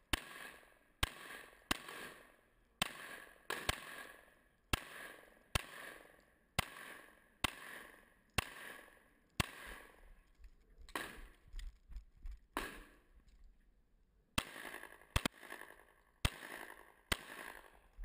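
Pistol shots fired in a rapid string during a timed course of fire, roughly one a second with a few close pairs, each crack followed by a short echo. The pace slackens with a brief lull past the middle, then the shots resume.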